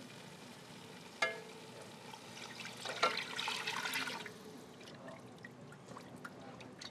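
Chicken stock poured from a glass measuring cup into a pot of sautéed onions and flour roux. A single short clink comes about a second in, and the pour runs loudest from about three to four seconds in.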